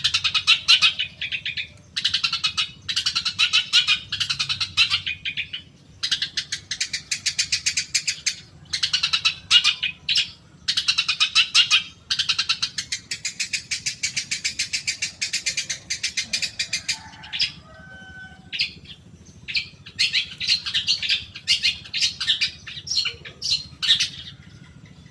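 Long-tailed shrike (cendet) song: fast, harsh chattering phrases of one to three seconds with short breaks between them. Past the middle there is a brief lull with a few short whistled notes.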